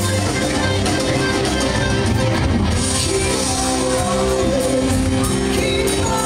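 Live rock band playing loud electric guitars over a drum kit. A man comes in singing near the end.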